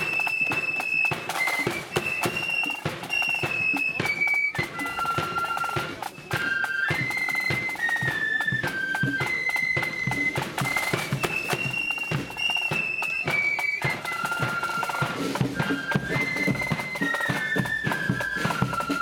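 Marching flute band playing a tune: many flutes carry the melody together over steady drum beats.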